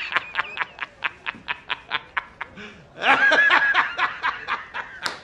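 A man laughing hard in a rapid run of short ha-ha bursts, about five a second, with the laugh swelling louder about three seconds in.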